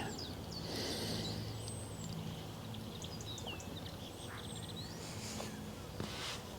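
Outdoor ambience: small birds chirping in short, scattered calls, over a faint steady low hum.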